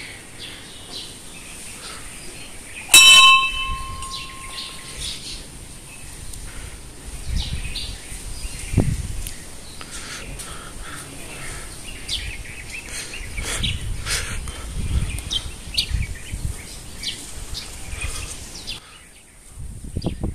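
A temple bell struck once about three seconds in, ringing and dying away over about two seconds. Scattered bird chirps and low rumbles on the microphone follow.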